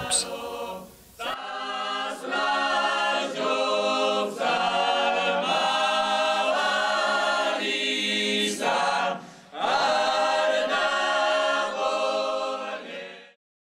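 Boys' choir singing Georgian polyphonic song a cappella: several voices in held chords over a steady low drone note, in phrases with short breaks, stopping shortly before the end.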